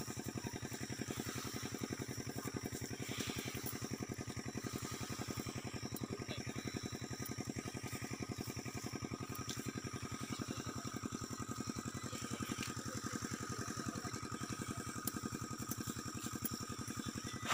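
A small engine running steadily with an even, rapid throb that does not change.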